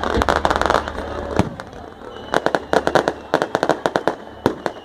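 Firecrackers going off: a quick rattle of cracks at the start, then a run of sharp single and paired bangs at irregular intervals.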